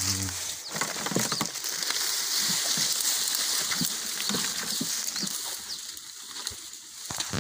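Rustling leaves and snapping twigs with irregular footsteps as someone pushes through dense undergrowth, over a steady high-pitched hiss.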